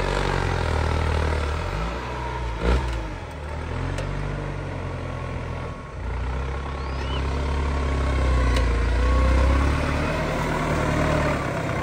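Case IH tractor's diesel engine running under load while pulling a mounted reversible plough through the soil. The engine note shifts as the plough is raised out of the ground partway through. There is one sharp knock a little under three seconds in.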